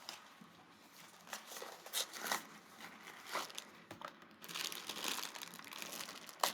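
A Funko Mystery Minis blind box being opened by hand: cardboard and wrapper crinkling and tearing in irregular crackles, thickest in the second half, with one sharp snap near the end.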